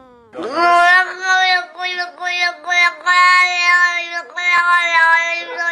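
A high-pitched voice singing a run of short held notes, starting with a sharp swoop up in pitch and then staying at much the same pitch, with each note breaking after a fraction of a second.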